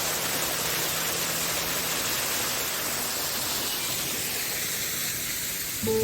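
Steady rushing hiss of falling water from a mountain stream and waterfall.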